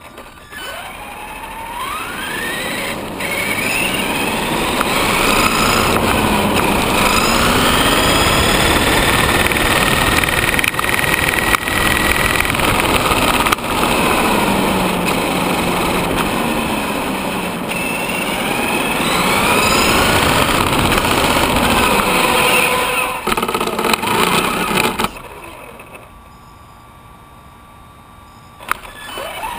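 Traxxas Summit RC truck's electric motor and drivetrain whining over the rush of its tyres on asphalt, heard from a camera mounted on the truck. The whine rises in pitch as it accelerates about a second in and again around two-thirds of the way through. It goes much quieter near the end, then picks up again, with a rubbing noise that the owner puts down to the Big Joe tyres rubbing on the body shell.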